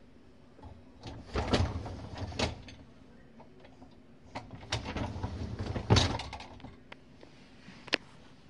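Whirlpool dishwasher being handled, its door and racks sliding and clunking in two short spells, then one sharp click near the end.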